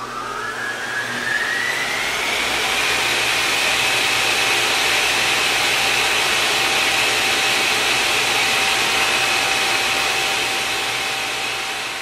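A synthetic whoosh rising in pitch that swells into a steady rushing hiss with a high whining tone held over it. It fades away at the end.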